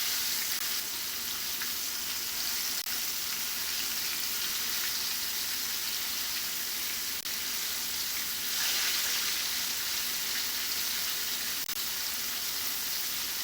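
Flour-coated shrimp frying in hot oil: a steady, high sizzling hiss that swells a little about nine seconds in, with a few faint clicks.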